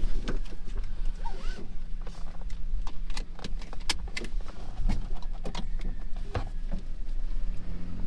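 A bus engine running with a steady low drone, heard from inside the vehicle, with frequent short rattles and knocks over it.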